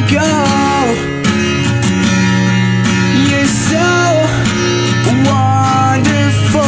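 Pop song with strummed acoustic guitar and a melody line that slides between notes.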